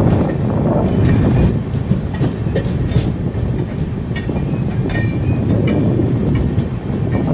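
Express passenger train running on the track as it pulls into a station, heard from the open doorway of a coach. A steady heavy rumble of wheels on rail, with irregular clicks as the wheels cross rail joints and points.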